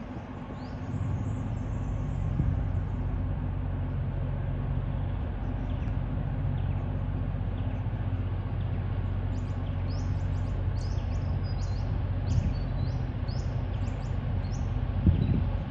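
Steady low drone of a diesel locomotive engine, TasRail's TR08 approaching the crossing. Small birds chirp in quick high-pitched runs near the start and again from about ten seconds in.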